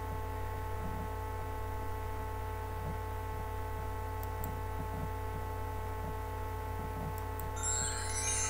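Steady electrical hum with many even tones, with a few faint clicks; a brief higher, scratchy-sounding wavering sound comes in near the end.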